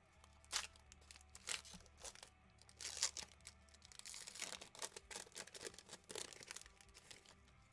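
Foil wrapper of a Panini Spectra football card pack crinkling and crackling as it is handled, in irregular short rustles with a louder crackle about half a second in and another about three seconds in.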